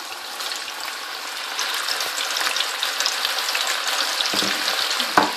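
Whole masoor lentils deep-frying in a wok of hot oil: a dense, crackling sizzle that swells louder as they go in. There is a short knock near the end.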